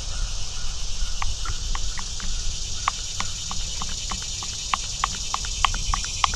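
Engine oil glugging as it pours from a quart bottle into the tractor's oil filler: a run of quick gulps, about three to four a second, starting about a second in.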